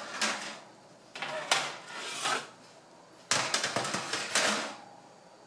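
Kitchen clatter of baking pans and utensils being handled: a few knocks and rattles, then a busier run of clicks and clatter a little past the middle.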